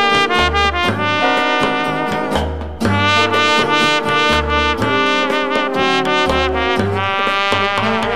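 Background music: an upbeat brass-led tune with trumpet over a steady, repeating bass line.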